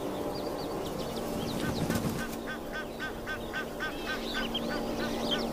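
A bird calling in a fast run of short, evenly spaced notes, about four a second, from about two seconds in, over a steady low hum.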